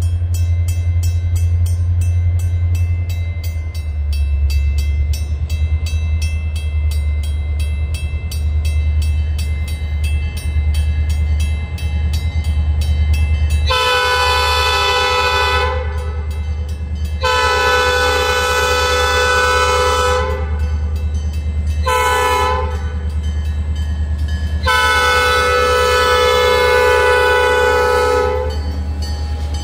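Railroad crossing bells ringing in rapid, even strokes over the steady low rumble of an approaching freight train. About halfway through, the ELS SD40-2 locomotive's air horn sounds the standard grade-crossing signal: two long blasts, one short, one long, each a chord of several notes.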